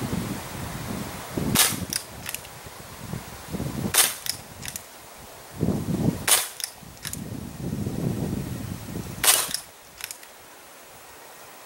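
Crosman Vigilante CO2 pellet revolver fired four times, sharp pops about two to three seconds apart, each followed by a fainter click or two.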